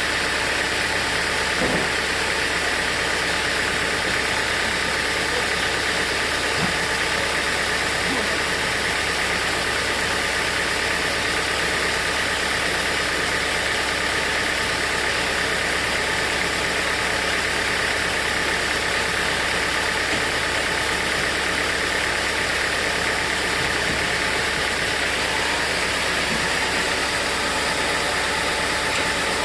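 Sawmill machinery running steadily, an even engine-like drone with a faint steady whine and no change in level.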